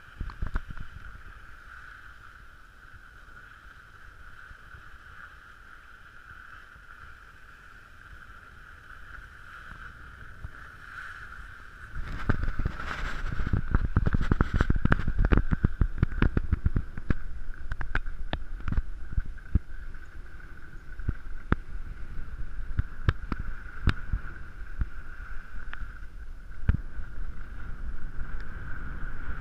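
Wind rushing over the camera microphone and skis scraping and chattering over packed, rutted snow on a downhill run. It gets much louder about twelve seconds in, with many sharp scrapes as speed picks up.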